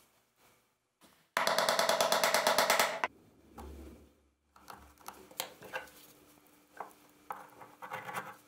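A loud, rapid mechanical rattle of about ten strokes a second lasting under two seconds, followed by small clicks and taps of knife handle parts and a blade being handled and fitted on a workbench, over a faint steady hum.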